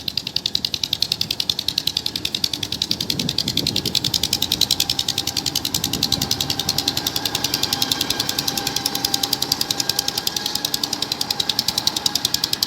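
Silage harvester machinery running with a rapid, even clicking, about eight or nine clicks a second, joined by a faint steady whine from about halfway through.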